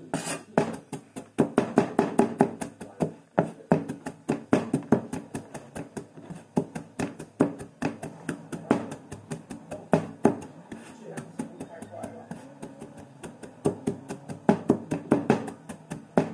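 Kitchen knife chopping rapidly on a cutting board, about four to five strokes a second with little pause.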